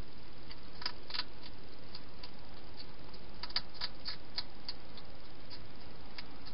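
A wild hedgehog feeding from a bowl inside a plastic feeding box: scattered small crunching clicks, a couple about a second in and a quicker cluster around the middle, over a steady hiss.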